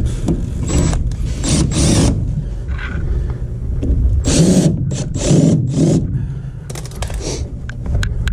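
Milwaukee cordless driver running in several short bursts, driving screws on a furnace cabinet, over a steady low rumble.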